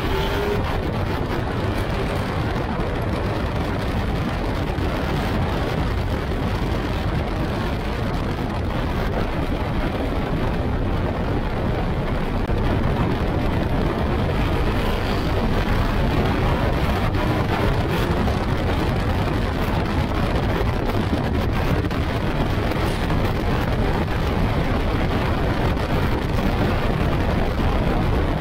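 Onboard sound of a Yamaha R1 inline-four motorbike-engined kit car driven at speed on track: the engine running hard under a heavy rush of wind through the open cockpit. The sound holds steady and gets a little louder from about halfway.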